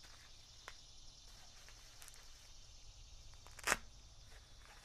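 Packing wrap being handled and pulled off: faint rustling with a few small clicks, then one short, sharp rustle of the wrap about three-quarters of the way in.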